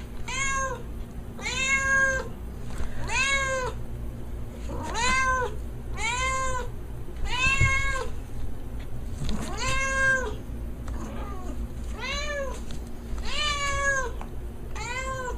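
A cat meowing over and over, about ten drawn-out meows a second or so apart, each rising then falling in pitch.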